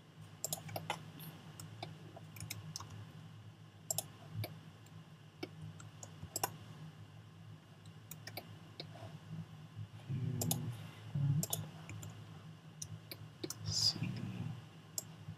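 Irregular clicks of a computer mouse and keyboard keys at a desk, over a steady low hum.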